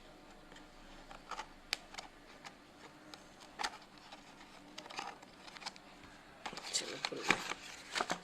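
Packaging being handled and opened by hand: scattered light clicks and taps, then crinkling and rustling of the wrapping from about two-thirds of the way in.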